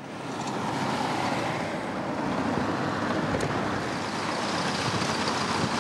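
Steady road traffic noise from a slow queue of cars, vans and a bus on a congested road.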